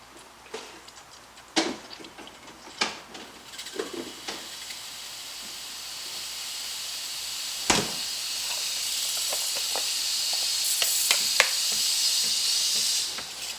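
Espresso machine steam wand hissing. The hiss builds over several seconds and cuts off near the end, after a few sharp clinks and knocks in the first seconds.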